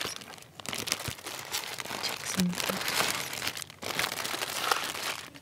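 Plastic candy packaging crinkling as it is handled, in irregular crackles with short pauses.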